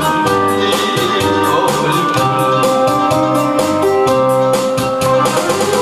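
Instrumental backing track of a trot song playing a passage without vocals, with sustained melody notes over a steady beat.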